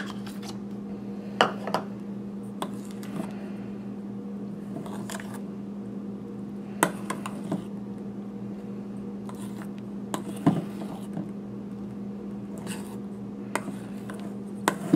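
A utensil scraping and tapping against a stainless steel mixing bowl as whipped cream is folded into a thick chocolate mixture, in a few scattered short clicks. A steady low hum runs underneath.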